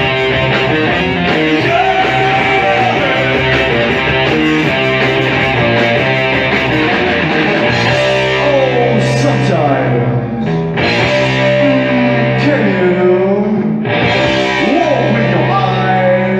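A rock band playing live, led by guitar over a steady low bass line, with notes sliding up and down from about eight seconds in.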